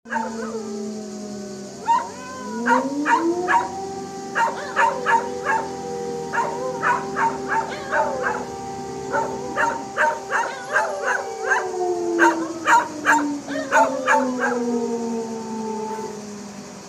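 A siren winds up to a steady wail in the first few seconds, holds it, then winds slowly down near the end. Dogs howl, yelp and bark along with it throughout.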